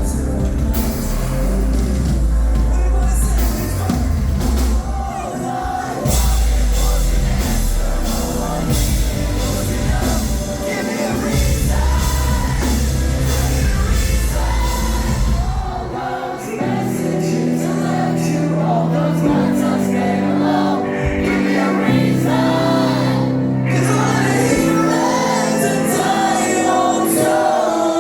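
A live band playing with a singer. About halfway through, the heavy bass and drums drop out, leaving held chords under the vocals.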